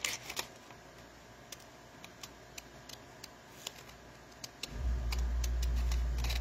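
Small scissors snipping through paper-backed masking tape: a scatter of short, sharp clicks as the blades close. About three-quarters of the way through, a steady low hum comes on and is the loudest sound.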